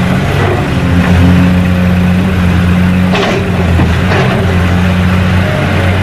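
Excavator engine running steadily with a low drone as its auger attachment drills into the ground. A brief hiss comes about three seconds in and a shorter one about a second later.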